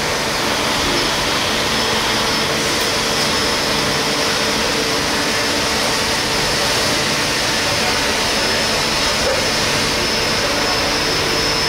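Steady machine-shop noise of a running Müga XP4 42 SM CNC lathe installation with its parts conveyor: an even whooshing hum with a faint high steady tone over it.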